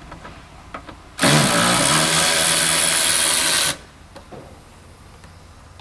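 Cordless power driver running steadily for about two and a half seconds, starting about a second in and cutting off abruptly, as it backs out a T27 Torx screw holding the bumper cover in the wheel well.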